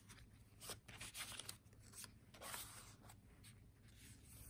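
Faint rustling and scraping of paper as small journaling cards are slid into paper pockets, in a scatter of short, soft strokes.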